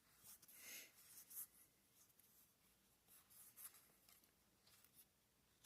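Faint scratchy rustling of Star Wars Unlimited trading cards sliding against each other as they are flipped through by hand, in a few short spells.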